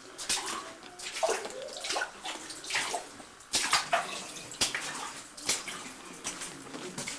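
Water splashing in an underground cave stream, in irregular sharp splashes about once a second.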